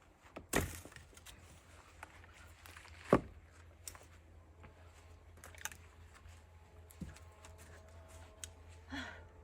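Two axe strikes into oak firewood about two and a half seconds apart, the second one louder, followed by a few faint knocks.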